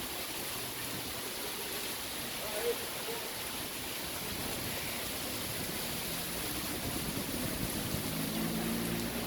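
Heavy rain pouring down in a steady hiss. From about six seconds in, a low engine hum joins it, growing toward the end.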